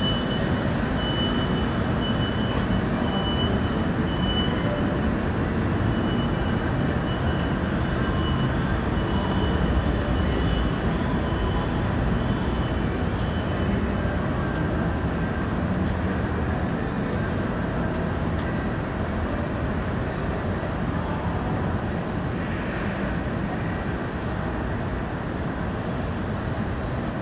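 Steady low rumbling background ambience with no breaks, and a faint thin high whine through roughly the first half.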